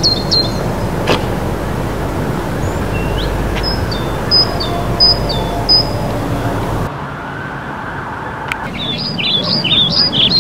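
Outdoor city ambience: a steady low traffic rumble with small birds chirping in short repeated high calls. The rumble drops away about seven seconds in, and a quicker run of chirps follows near the end.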